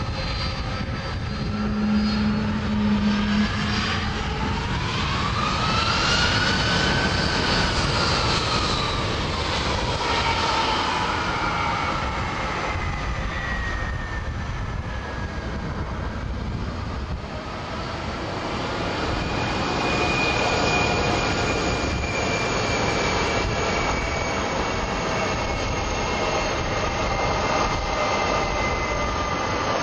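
Aircraft engine running continuously with a rushing noise. Its whining tones rise and fall in pitch about a quarter of the way in, then slide slowly downward, and a steadier high whine holds through the last third.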